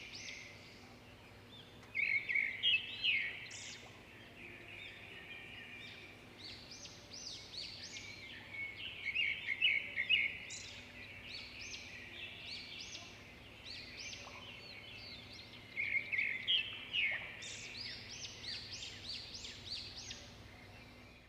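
Small songbirds chirping: many quick, high chirps, with louder clusters about two, nine and sixteen seconds in, over faint background noise.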